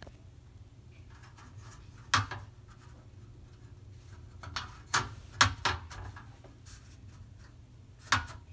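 Sharp clicks and taps of wire locking tabs and a metal mesh grease filter being handled and locked into a stove hood's metal cover plate: one about two seconds in, three close together around five seconds, another near the end.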